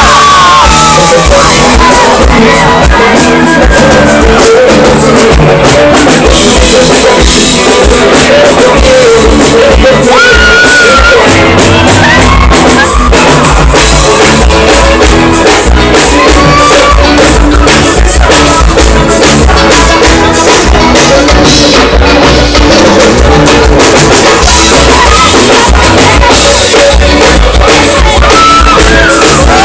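Live band music with a male singer and a drum kit, very loud throughout.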